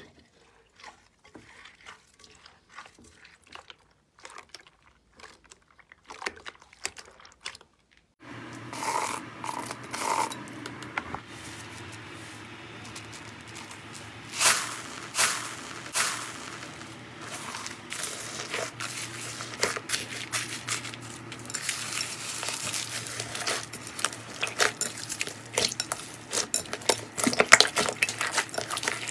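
Hands working slime and foam beads in a glass bowl. First come faint wet squishes and small crackles from clear slime with water beads. From about eight seconds in, louder crunching and rustling starts as a hand presses and stirs a bowl of loose foam balls. Toward the end there is dense crackling and popping as bead-filled slime is squeezed.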